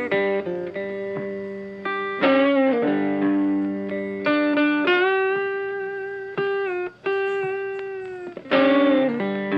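Background music: a guitar playing a slow melody of single ringing notes, some held for a few seconds with a slight waver.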